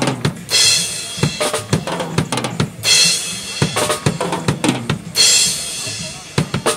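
Live drum kit being played during a sound check: a busy pattern of kick drum and snare hits, with three cymbal crashes about two seconds apart.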